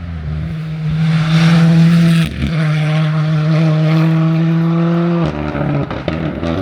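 WRC rally car engine held at constant high revs for launch, one steady loud note with a brief stutter about two seconds in, cutting back near the end.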